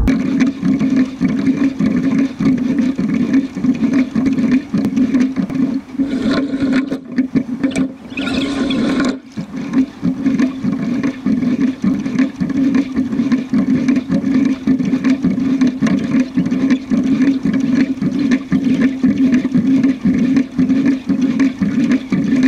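Water rushing and splashing steadily along the hull of a moving sculling boat, heard close up from the bow. There is a brighter burst of splashing about six to nine seconds in.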